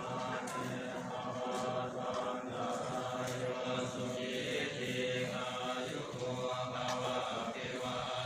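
Buddhist ritual chanting by a group of male voices in unison, held on a near-steady monotone pitch.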